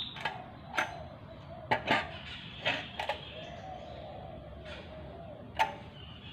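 A handful of sharp, irregular clicks and light taps, spaced from a fraction of a second to a couple of seconds apart, as the rice cooker is handled and checked.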